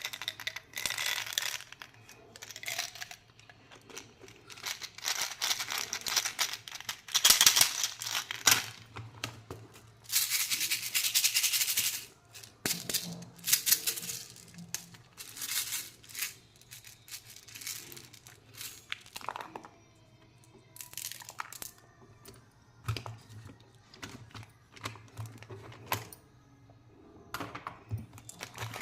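Plastic candy and toy packaging crinkling and rattling in irregular bursts as it is handled and opened.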